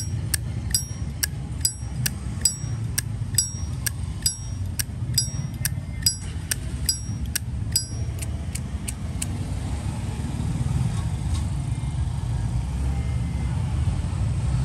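Zippo lighter lid flicked open and snapped shut again and again, about two sharp metallic clicks a second, many with the high ringing 'Zippo clink'; the clicking stops about nine seconds in. A steady low rumble runs underneath.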